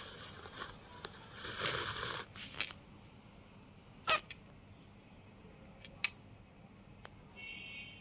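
A cockatiel at the phone's microphone: scratchy rustles, then a few sharp single clicks about a second apart, like a beak tapping and nibbling at the phone. A faint short chirp comes near the end.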